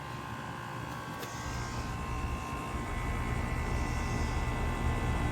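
2025 Carrier Comfort 15 two-ton heat pump outdoor unit running in cooling, its compressor hum and condenser fan steady with a few whining tones; the low hum grows louder about a second and a half in.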